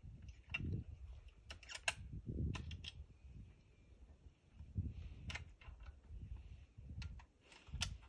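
Handling noise of a phone camera held to a scope: scattered sharp clicks and dull low bumps at irregular moments.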